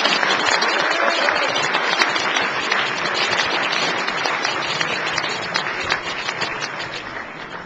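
Audience applauding, many hands clapping at once, which fades away near the end.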